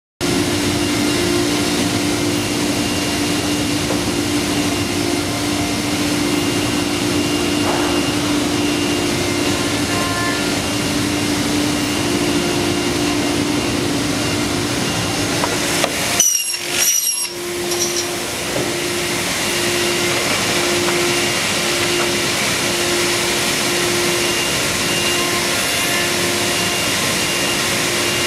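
PVC profile cutting and machining centre running: a steady machine noise with a steady hum. About 16 seconds in it breaks off briefly with a few clicks, then picks up again, the hum going on and off for a few seconds before settling.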